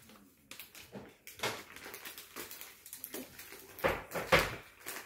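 Crinkling and rustling of small plastic packets and paper being handled and torn open, a run of irregular crackles and clicks with two louder ones about four seconds in.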